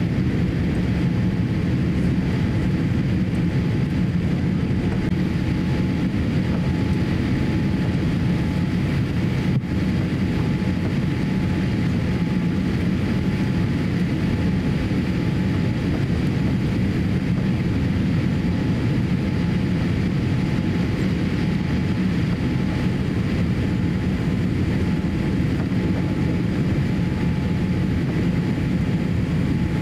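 Steady cabin noise inside a Boeing 787-8 airliner descending on approach: an even, low rumble of airflow and engines, with a faint steady whine above it.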